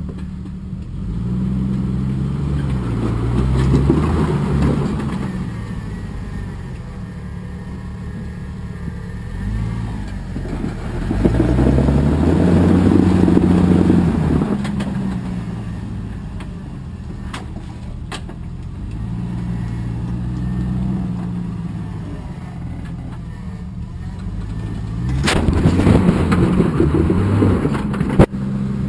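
Rock-crawling off-road vehicle's engine revving in repeated surges and easing back, the pitch rising and falling with each push over the boulders, loudest about halfway through and again near the end. A single sharp knock sounds just before the end.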